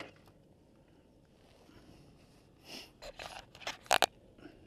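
Quiet at first, then a cluster of short rustling and scraping noises from something brushing against the camera, loudest about four seconds in.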